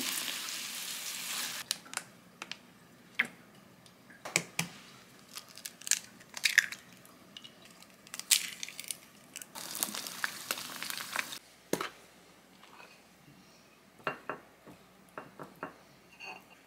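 King oyster mushroom slices in sauce sizzling in a frying pan, cutting off suddenly. Then scattered knocks and the crack of an eggshell, followed by two stretches of sizzling from an egg pan on the hob. Near the end come light taps and scrapes of a silicone spatula against a ceramic dish of rice.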